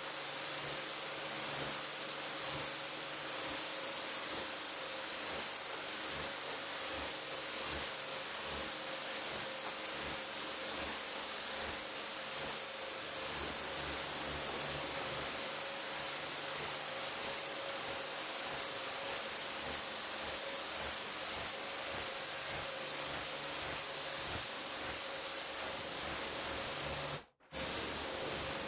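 Pressure washer spraying a high-pressure water jet onto a wet rug to rinse it: a steady hiss with a faint steady hum under it. It breaks off briefly near the end.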